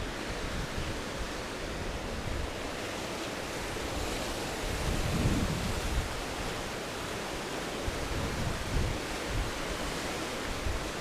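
Wind rushing over a windshield-covered microphone, a steady hiss with low rumbling gusts, loudest about five seconds in.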